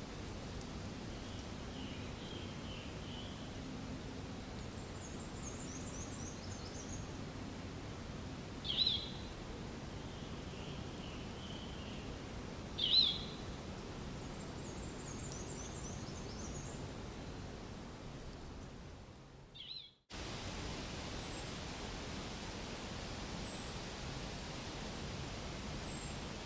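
Outdoor forest ambience: a steady background hiss with repeated high chirps and trills from birds, and two louder short sharp calls. The sound fades out at about twenty seconds and a new stretch begins, with short high falling whistles about every two seconds.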